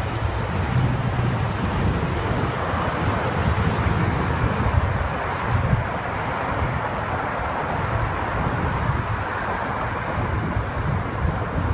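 Wind buffeting the microphone of a camera riding on a moving bicycle, a steady noise heaviest in the low end, mixed with the sound of road traffic.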